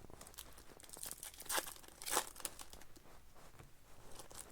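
Trading-card pack wrapper being torn open and crinkled, with scattered short rustles, the loudest about one and a half and two seconds in.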